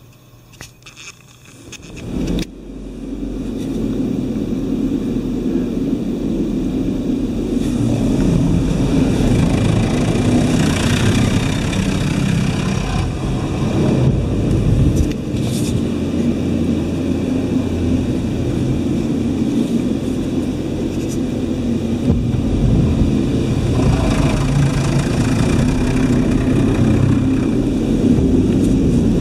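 Laserwash G5 touchless car wash spraying water over the car, heard from inside the cabin. A few faint clicks come first, then the spray starts suddenly about two seconds in and keeps up as a loud, steady rush against the body and glass, swelling brighter now and then.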